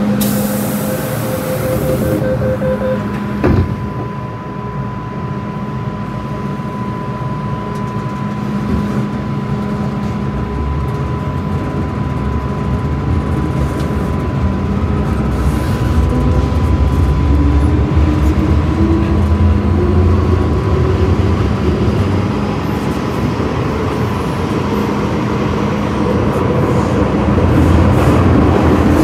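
MTR M-train metro car heard from inside while running through the tunnel: a steady rumble with a thin high whine. A short hiss comes at the start and a single sharp clunk about three and a half seconds in. From about two-thirds of the way through, the traction motors' whine rises in pitch as the train gathers speed.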